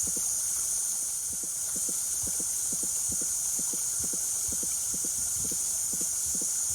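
Steady high-pitched hiss of a summer cicada chorus, with a soft low pulse underneath that comes in pairs roughly twice a second.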